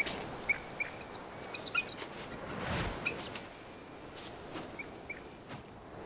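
Bald eagles calling: short, high chirping notes scattered through, over a steady background hiss, with a brief rush of noise about halfway through.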